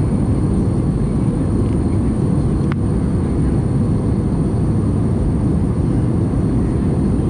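Steady in-flight cabin noise of an Airbus A320 heard from a window seat: jet engine and airflow noise, mostly low and even. A faint click comes about three seconds in.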